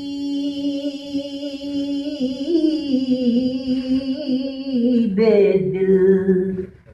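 Solo male voice singing an Urdu naat with no instruments: one long drawn-out note that wavers slightly and steps down in pitch about two seconds in. A lower held note follows from about five seconds in and breaks off just before the end.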